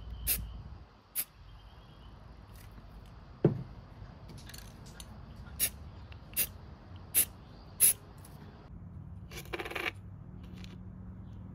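Aerosol spray-paint can giving a string of short spritzes, about one every second, and a longer hiss near the end, with one knock partway through.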